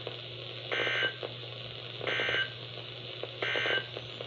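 Emergency Alert System digital data tones sent three times over weather radio: three short warbling bursts, each under half a second, about 1.4 seconds apart. This is the end-of-message code that closes the warning. A steady low hum lies underneath.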